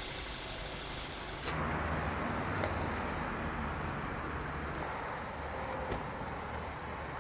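Outdoor background noise of road traffic with wind on the microphone, changing abruptly about one and a half seconds in as the footage cuts.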